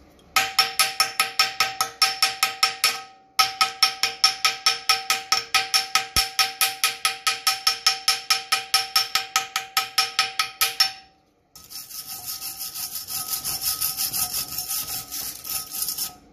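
A hand file working back and forth in a hole in a steel Ford Model T frame rail, squaring it out. The strokes are quick and even, about four or five a second, with a steady ringing tone under them. They break off briefly about three seconds in and again about eleven seconds in, and the last few seconds are softer and smoother.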